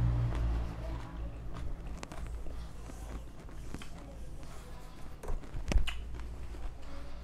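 Chewing a mouthful of boat noodles with the mouth closed: soft, scattered wet mouth clicks and smacks over a steady low hum, with one sharper click about six seconds in.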